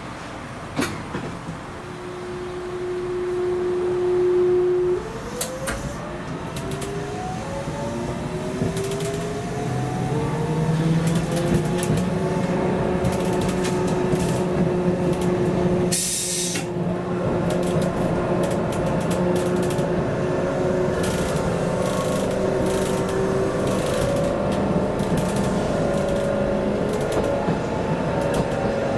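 Toyohashi Railway 780-series tram running and gathering speed: its motor whine holds one note for a few seconds, then several tones rise steadily in pitch, over wheel-on-rail rumble and clicks. A short sharp hiss comes about halfway through.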